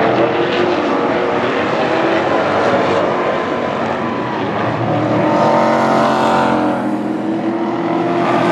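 Pack of Pro Trucks race trucks running at racing speed around a paved oval, engines at full throttle. The sound swells a little past the middle as the trucks come down the front stretch toward the stands.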